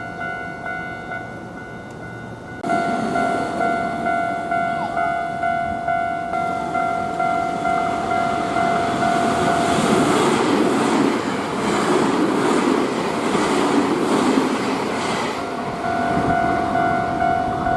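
Japanese level crossing warning bell ringing with its steady two-tone clang while a Nankai 1000 series electric train passes through. The train's noise builds from about six seconds in and drowns the bell for several seconds, with a rhythmic clickety-clack of wheels over rail joints, before the bell rings out clearly again near the end.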